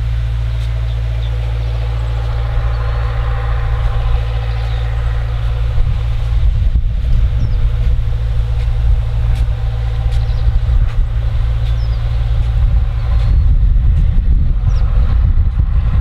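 Distant John Deere four-cylinder turbodiesel engine running steadily under load, driving a 1200 gpm center-pivot irrigation pump at 40–45 psi, heard as a steady low drone. Wind buffets the microphone from about six seconds in, more strongly near the end.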